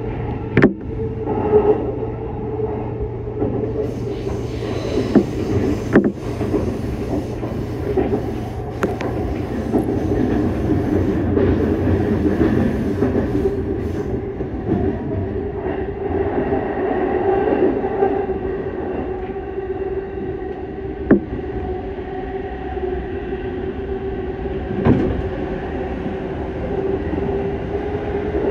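JR East Chuo Line Rapid electric train running at steady speed, heard from the driver's cab: a low rumble of wheels on rail under a steady whine. A few sharp clicks come from the track along the way.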